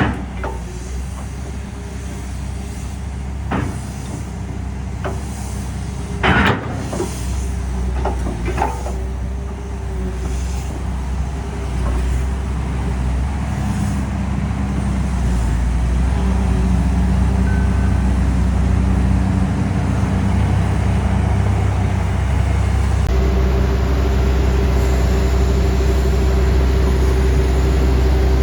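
Heavy diesel engine of construction machinery or a truck running steadily with a deep rumble that grows a little louder over time. A few sharp metallic knocks come over it, the loudest about six seconds in.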